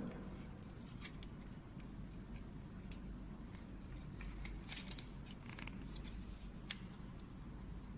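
Faint, scattered small clicks and scrapes of a wire being fitted into a wall light switch's terminal, a few sharper clicks together a little past the middle.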